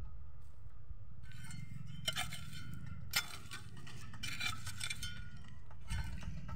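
Several short bursts of rustling and crinkling over a steady low rumble.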